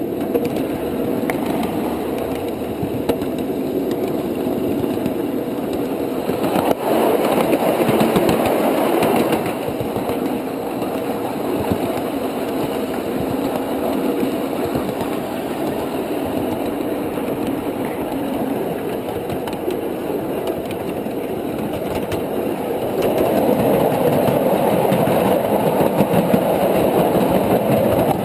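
Ride-on miniature railway train running along its track: a steady mechanical rumble of the locomotive and wheels on rail, swelling louder about seven seconds in and again near the end.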